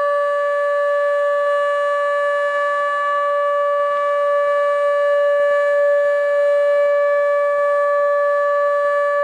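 ATI HPSS32 electronic outdoor warning siren sounding a steady tone for a test: one unwavering pitch with strong overtones, loud and constant.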